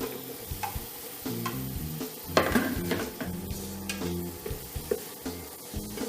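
Bitter melon (goya) and tofu sizzling in a frying pan while a utensil stirs and scrapes against the pan, with the loudest scrape about two and a half seconds in.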